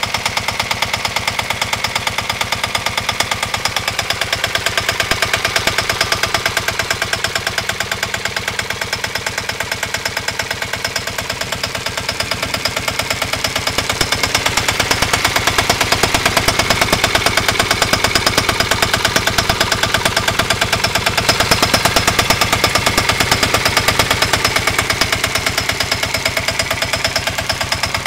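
Lombardini 505 cc single-cylinder diesel engine in a Dnepr motorcycle idling steadily, with a fast, even beat of diesel knock from its firing strokes.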